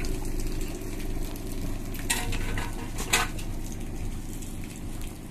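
Small excavator's diesel engine running steadily, with two sharp metallic clinks about two and three seconds in.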